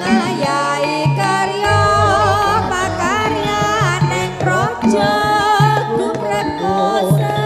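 Live jaranan music from an East Javanese gamelan ensemble: hand-drum strokes and struck metal tones under a wavering, ornamented melody line with singing.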